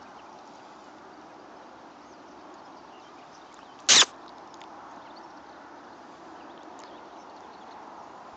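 A single short, loud knock about four seconds in, over a steady rustling outdoor background.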